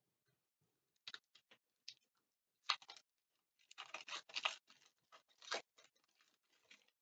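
Foil wrapper of a football trading-card pack crackling and tearing as it is opened by hand: a series of short crinkles, thickest from about four to six seconds in.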